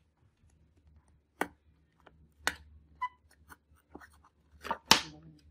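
A few sharp knocks and taps of a cardboard box on a wooden tabletop as a soldering iron is pushed into it, about four in all, the loudest near the end.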